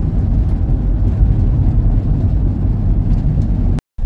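Steady low rumble of a passenger van's engine and tyres heard from inside the cabin while driving. It cuts out for a moment near the end.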